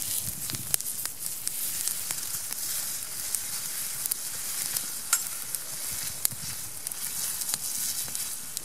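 Sausages sizzling in butter in a long-handled frying pan over a campfire: a steady high hiss of frying, with scattered sharp clicks as the sausages are turned with a knife.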